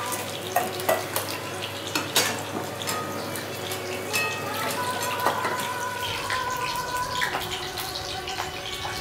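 Stainless-steel pots and utensils clinking and scraping on a gas stove, with a low sizzle of frying underneath. There are sharp clinks every second or so, some of them ringing on briefly.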